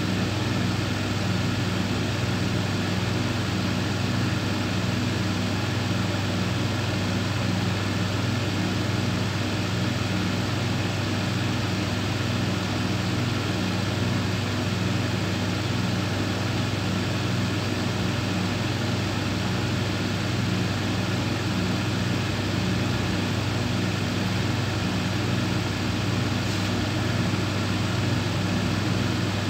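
Steton S 530 R thicknesser running: a steady, even low machine hum that does not change in level or pitch.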